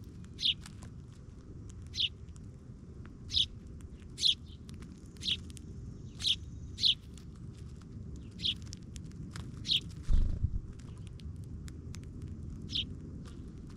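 A small bird chirping: short, sharp notes that drop in pitch, repeated roughly once a second at an uneven pace, over a low steady rumble. A brief low thump about ten seconds in.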